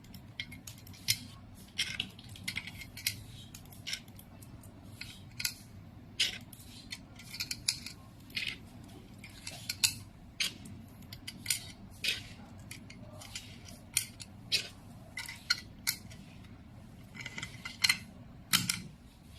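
Metal fibre optic connector polishing fixture being handled, with irregular sharp clicks and clinks as parts and connectors are snapped in and taken out, over a low steady hum.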